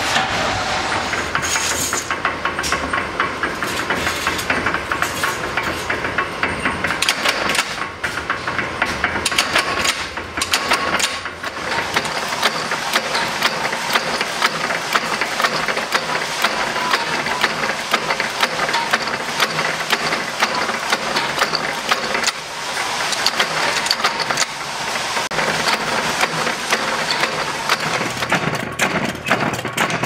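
Mechanical punch press running, stamping padlock plates out of steel strip with rapid, repeated metallic clanks over steady workshop machine noise.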